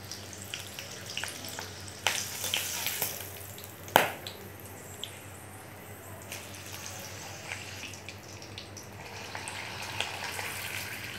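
Whole green chillies frying in hot oil, a steady sizzle with crackling and a few sharp pops, the loudest about four seconds in.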